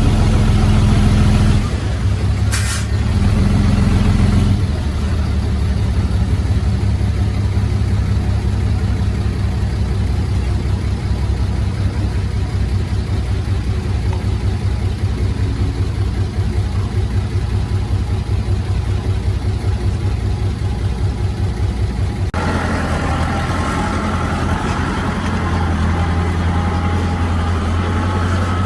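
Heavy diesel engines of earthmoving machinery (bulldozer and dump trucks) running steadily at work. There is a brief hiss about two and a half seconds in. Near the end the sound changes abruptly to a brighter engine note.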